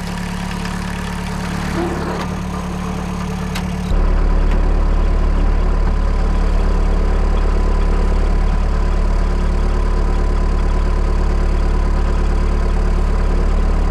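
1984 VW Rabbit's four-cylinder turbo diesel engine idling steadily once warmed up. About four seconds in the sound jumps louder and deeper, now heard from inside the car's cabin.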